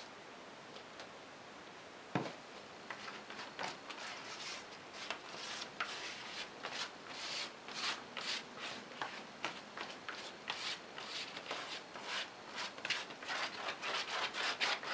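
Hands rubbing and handling a sheet of pastel sandpaper: a single knock about two seconds in, then a run of quick, dry, scratchy rubbing strokes that come thicker toward the end.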